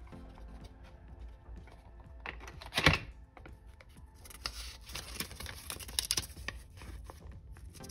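Small paper storybook handled and its pages flipped by hand: a sharp paper rustle about three seconds in, then a run of crisp page-turning crinkles and light clicks over the last few seconds.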